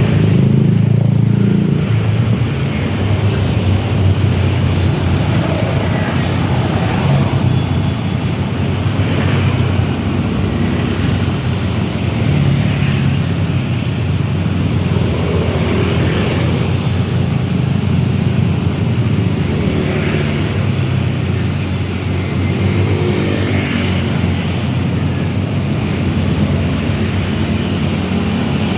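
Komatsu excavator's diesel engine running steadily while the machine works.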